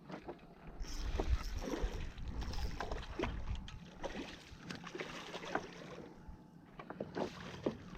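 Water splashing and lapping, with scattered irregular clicks and knocks. A low wind rumble on the microphone runs from about one to three seconds in.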